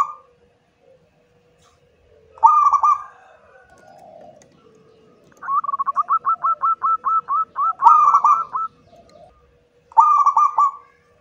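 Zebra dove (perkutut) cooing: a short burst of coos, then a quick run of about a dozen staccato notes, four to five a second, lasting about three seconds, then another short burst near the end.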